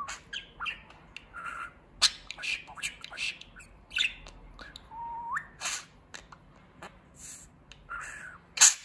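Budgerigar warbling: a run of short scratchy chirps, clicks and squawks, with a short whistle that rises in pitch about five seconds in and a loud sharp chirp near the end.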